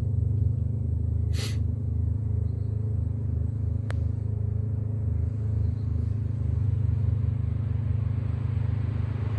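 Chinese diesel heater starting up, its blower fan running at low speed with a steady low hum while the glow plug heats, before the fuel pump begins. A short hiss comes about a second and a half in, and a single sharp click near four seconds.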